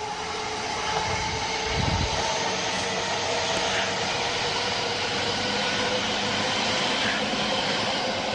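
Orange-striped JR Chuo Line electric commuter train passing close below, wheels running on the rails with a steady hum. The sound builds over the first second as the front arrives, then holds steady as the cars go by. A brief low thump comes about two seconds in.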